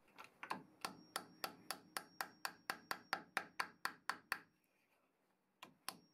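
Light, rapid hammer taps, about four a second, on a thin steel blade set against the edge of an aluminium workpiece superglued to a plywood fixture, knocking it to break the glue bond. The tapping pauses for about a second and then starts again near the end.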